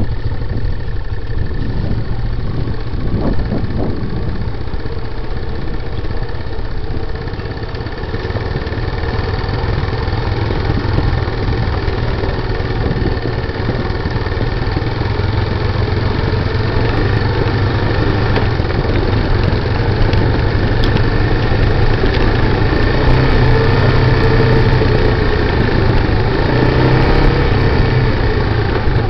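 Honda ATV engines (a 1995 TRX90 and a 1985 Big Red) running steadily at low trail speed, the engine note rising and falling with the throttle, most noticeably in the last several seconds.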